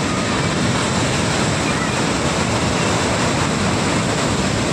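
Ocean surf: a steady rush of breaking waves, even in level with no distinct swells.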